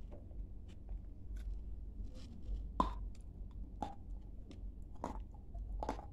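A person biting and chewing crunchy pale edible clay close to the microphone: small mouth clicks at first, then sharp crunches about a second apart in the second half.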